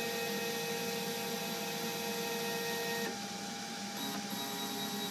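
Stepper motors of a Probotix X90 CNC router driving the gantry, a steady whine of several held tones. The move stops about three seconds in, and another move at a different pitch starts about a second later.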